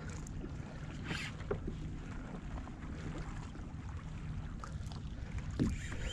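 Steady low rumble of wind and water lapping around a kayak on open sea, with a few short knocks.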